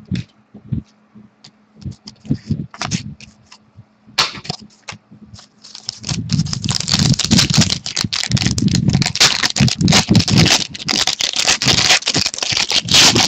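Trading-card packs and cards being handled: light clicks and rustles of cards, then, about six seconds in, the loud, dense crinkling of a pack wrapper being torn open and the cards slid out.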